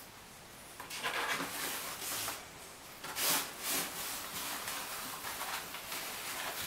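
Ferrets scrabbling and rummaging against a fabric bag and a cardboard box on a tile floor: bursts of rubbing and scraping that start about a second in, peak about three seconds in, then carry on more faintly.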